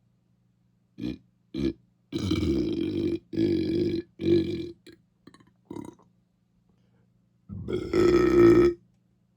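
A person belching over and over: two short burps, then a run of long, drawn-out belches, and a last one near the end that is the loudest and longest.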